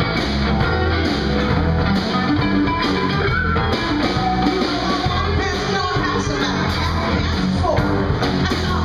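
A live blues-rock band playing, with electric guitars and drums, and a woman singing.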